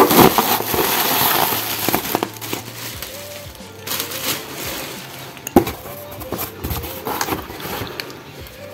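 Plastic packaging crinkling and rustling as wrapped bottles are handled in a cardboard box, loudest for the first two seconds. Then a few sharp knocks as bottles are moved against the box.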